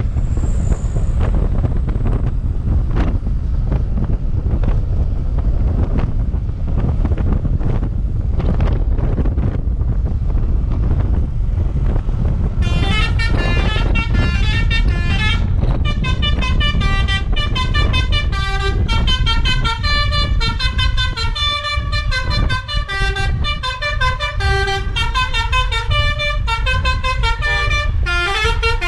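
A low rumble for the first twelve seconds or so, then a Basuri V3 telolet bus horn plays a quick melody, its notes stepping up and down with several tones sounding together, over the rumble to the end.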